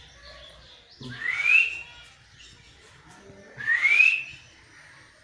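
A pet parrot giving two rising whistles, about two and a half seconds apart.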